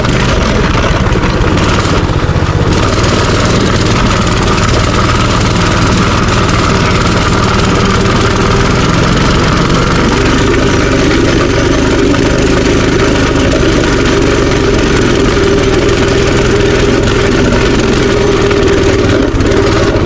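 Minibike engine running steadily and loudly while the bike is ridden.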